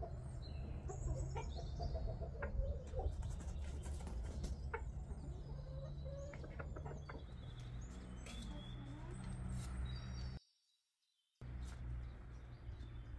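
Domestic chickens clucking in a yard, with scattered high chirps and a steady low rumble underneath. The sound drops out for about a second near the end.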